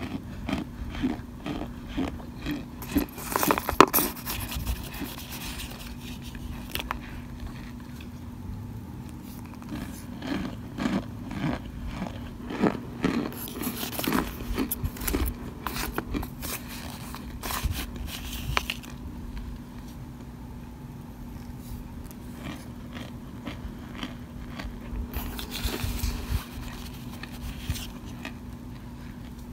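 Plastic spoon scraping and scooping through cornstarch powder and chunks in a glass bowl: soft crunching and scrapes in bouts, loudest about four seconds in.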